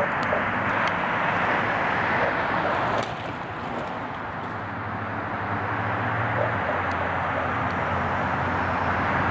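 Steady roadside traffic noise, dropping a little about three seconds in, with a faint engine hum in the middle.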